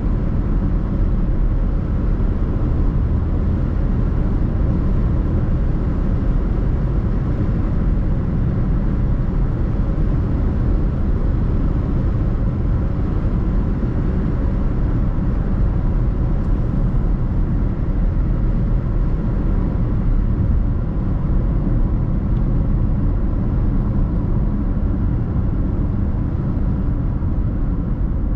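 Steady road and engine noise of a car driving, a constant low rumble with no change in pace.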